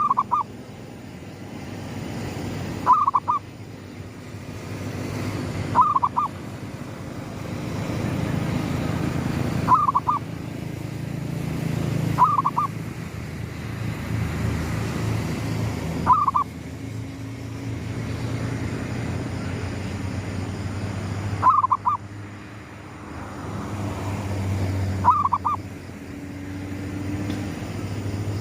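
Zebra dove (perkutut) cooing, a short cluster of quick notes repeated every few seconds, about eight times. A low rumble swells and fades underneath.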